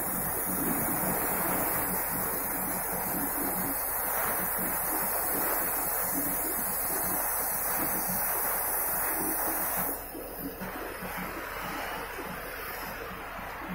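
Oxy-fuel gas cutting torch hissing steadily with faint crackle as it cuts through steel plate. About ten seconds in the sound drops and turns softer as the torch comes off the work, leaving the hiss of the flame alone.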